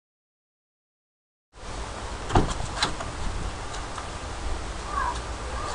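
Dead silence for about a second and a half, then outdoor ambience with low wind rumble on the microphone, broken by two sharp knocks close together soon after the sound comes in.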